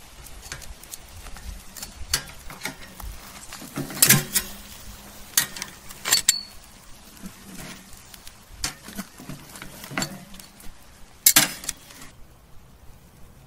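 Metal tongs and spatula clinking and scraping against a stainless steel wire grill grate as a thick bone-in steak is turned over charcoal, several sharp clanks with the loudest about four seconds in and again near the end. A faint steady crackle runs underneath and stops shortly before the end.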